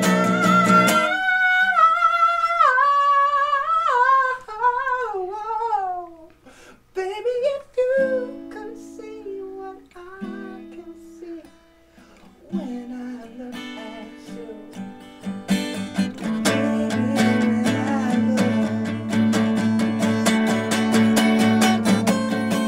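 A song with acoustic guitar and singing. The voice holds a note, then wavers through a run of sliding notes over the first several seconds. Quieter picked guitar notes follow, building about two-thirds of the way through to steady, fuller strumming.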